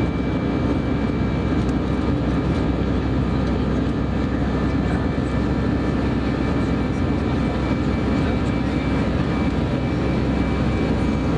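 Airbus A319-111 jet engines at climb power just after takeoff, heard inside the cabin: a steady, even roar with thin, unchanging whines above it.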